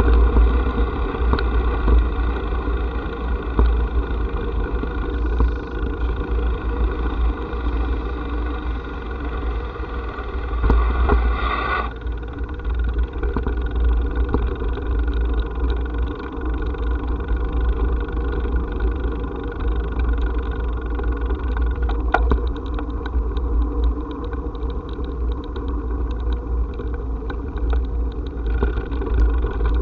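Steady running noise of a small vehicle carrying the camera: an even motor hum under heavy low wind rumble on the microphone, the higher part of the sound dropping away about twelve seconds in.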